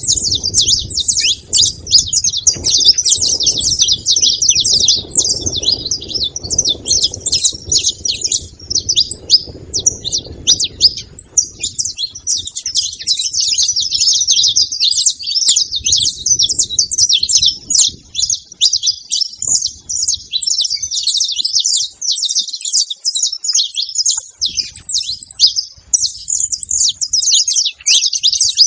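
A flock of saffron finches chirping and calling over one another in a dense, continuous chatter. A low rumble sits under the calls for about the first twelve seconds and returns briefly later on.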